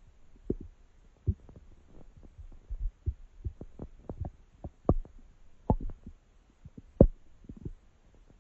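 A person's stomach gurgling and growling: an irregular run of short, mostly low gurgles, several a second, the loudest about seven seconds in.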